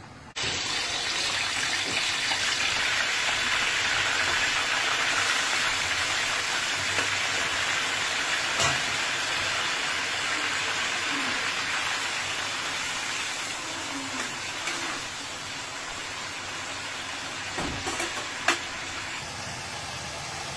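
Marinated beef and chicken gizzards sizzling in their liquid in a pan: a steady hiss that starts abruptly just after the beginning and eases slightly in the second half, with a few sharp ticks, the loudest near the end.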